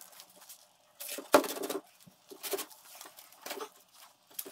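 A few sharp metal clanks and knocks from handling a bare BMW N52 cylinder head on wooden blocks, the loudest about a second in, with lighter clicks between.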